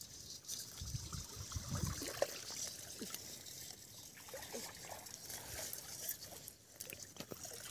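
Light trickling and sloshing of shallow water as hands grope through mud and weeds under the surface, with small scattered splashes.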